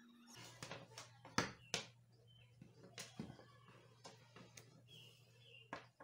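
Faint handling noise of a hand tool and copper wire on a workbench: a few sharp clicks and taps, the loudest two close together about a second and a half in, over a low steady hum. A few short high chirps, like a bird's, sound in the second half.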